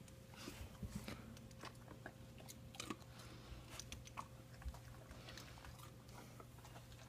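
A dog chewing and crunching popcorn: faint, irregular crunches and mouth clicks.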